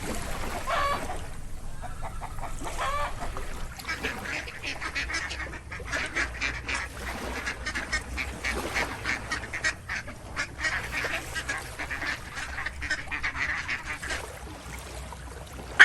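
Ducks calling: a few separate quacks at first, then from about four seconds in a dense, rapid run of short quacks from several birds.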